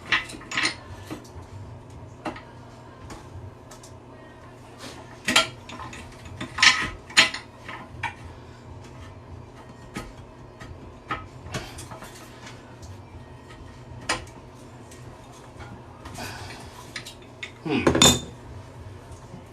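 Scattered metal clicks and clanks of a small pipe wrench gripping and slipping on a toilet tank's mounting nut, with a louder, longer clatter near the end. The fitting is spinning freely inside the tank instead of loosening.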